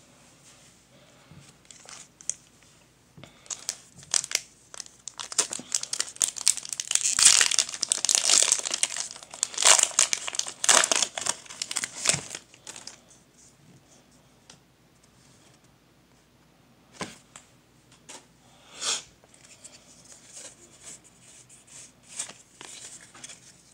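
Foil Pokémon booster pack wrapper crinkling loudly as it is torn open, rising to a dense run of crackles for several seconds, then stopping. After that come a few brief, softer rustles as the cards are handled.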